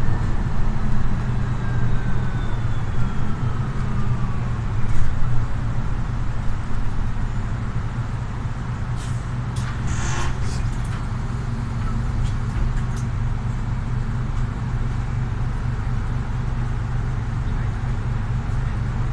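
Steady drone of a Solaris Urbino 18 articulated bus's Euro 6 diesel engine heard from inside the passenger cabin while riding. A faint whine falls in pitch over the first few seconds, and a brief hiss of air with a few clicks comes about ten seconds in.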